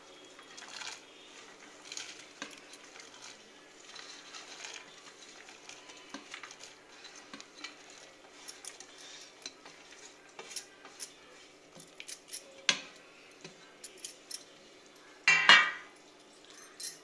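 Stainless steel plate and pot clinking and scraping as chopped vegetables are scraped off the plate into a pot of boiling water, with many light clicks. A louder metal clatter comes near the end.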